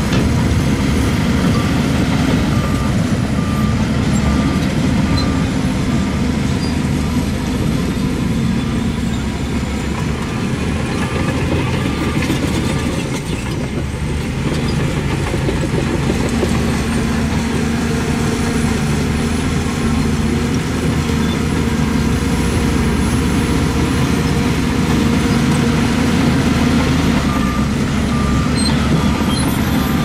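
Heavy diesel earthmoving machinery running steadily under load, with a reversing alarm beeping in three short runs.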